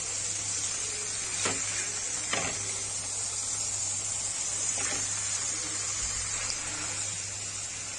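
Bone-in beef steak sizzling steadily in butter and olive oil in a frying pan, with three light knocks as it is turned over with a spatula. A faint low hum runs underneath.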